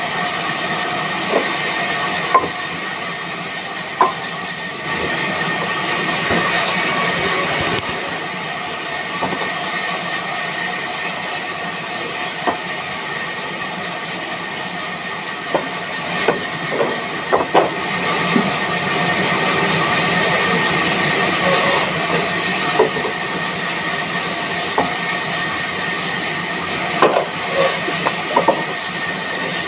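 Band saw machine running steadily with a constant high whine and hiss, and scattered knocks and clicks throughout.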